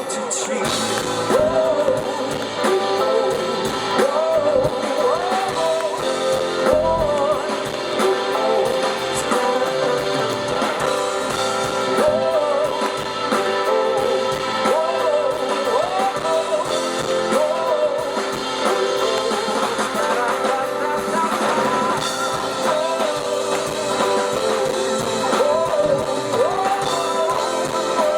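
Live performance of a ballad: a male voice singing a gliding melody over guitar and band accompaniment.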